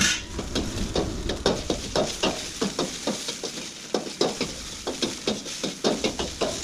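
A metal spatula scraping and knocking in a wok over and over as hot oil sizzles, a few strokes a second. A low rumble fades out about halfway.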